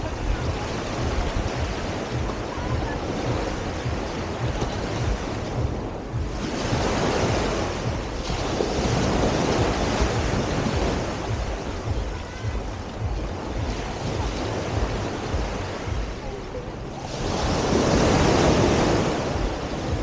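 Sea waves breaking and washing up the shore, swelling louder twice: about six seconds in and again near the end. Wind rumbles on the microphone throughout.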